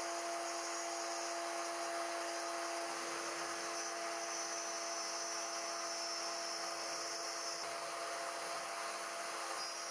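CNC router spindle running at high speed with a small end mill cutting thin metal sheet: a steady whine made of several held tones over an even hiss. The hiss includes an air jet blowing the chips off the cut.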